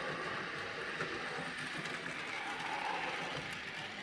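Model railway goods train running along the track: a steady rolling and whirring of the wagons' wheels and the locomotive's motor as it comes past.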